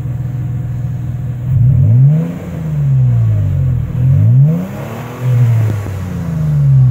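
2017 Toyota Tacoma TRD Pro's 3.5-litre V6 through its TRD exhaust, heard at the tailpipe: idling steadily, then free-revved about four times with the truck standing still, each rev climbing and dropping back toward idle.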